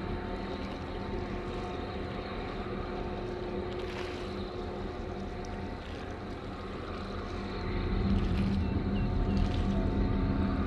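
Boat engine running with a steady low drone, growing louder about eight seconds in.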